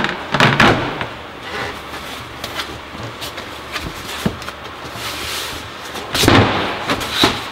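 Boat cockpit panels and cushions being handled: a knock and scuffle at the start as a floor hatch panel is lifted, light clicks and rustles, then a longer, louder scuffing burst about six seconds in as a seat cushion is lifted.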